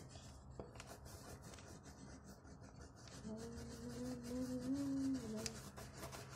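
Soft scratching of colouring on paper, with a person humming one short, wavering note for about two seconds starting around three seconds in.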